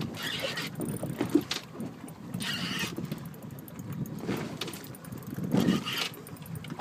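Shimano Stella 20000 spinning reel being wound in several short spells under the heavy load of a hooked bluefin tuna, as the rod is pumped and the line gained on each drop.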